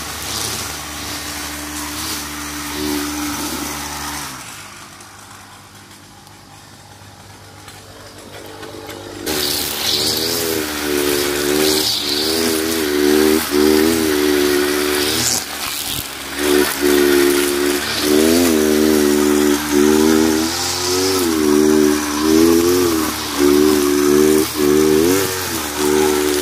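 Backpack brush cutter with a Kawasaki TJ45 two-stroke engine cutting overgrown grass. It runs steadily at first, falls much quieter for a few seconds about five seconds in, then comes back louder with the engine revving up and down again and again as the blade works through the grass.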